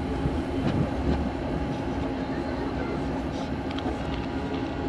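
Passenger train running along the track: a steady rumble with a constant hum and a few faint clicks.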